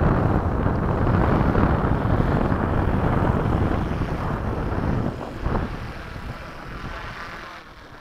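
Wind buffeting the microphone, a rough low rumble that stays loud for about five seconds and then eases off.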